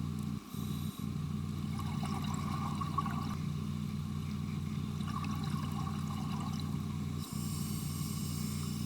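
Underwater sound of a scuba diver: a steady low hum, with a fizzing rush of exhaled regulator bubbles from about seven seconds in to near the end.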